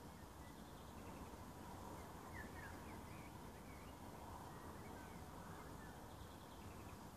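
Quiet waterside ambience: a steady low rumbling noise with a few faint bird chirps about two to three seconds in.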